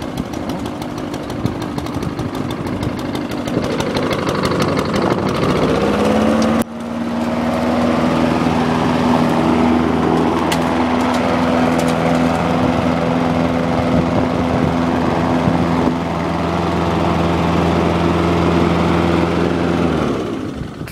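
Honda 5.5 hp single-cylinder engine on a Craftsman rotary mower running just after being started on manual choke. Its revs climb over the first several seconds, there is a brief break about six and a half seconds in, and then it runs steady and smooth until the sound falls away near the end.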